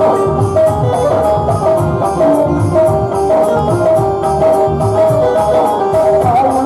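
Instrumental passage of a Krishna bhajan: a steady drum rhythm under held melodic notes, with no singing.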